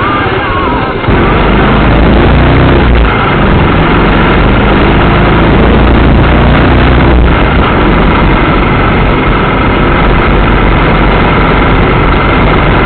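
Royal Enfield Classic 500's single-cylinder engine running as the motorcycle is ridden, with a steady noise over it. About a second in the sound gets louder and a deep low rumble comes in.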